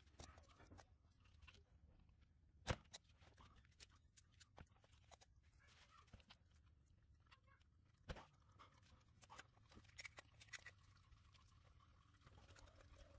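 Mostly near silence with faint scattered clicks and crunches from channel-lock pliers gripping and turning a spin-on oil filter to loosen it; two sharper clicks stand out, about three and eight seconds in.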